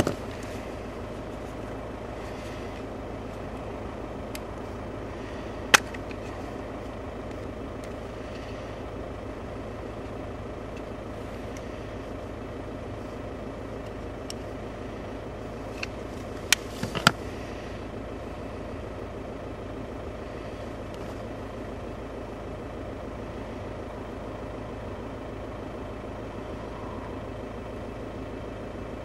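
A steady low mechanical hum, with a sharp click about six seconds in and a quick run of clicks a little past halfway, from hands handling a carp rig and its tackle.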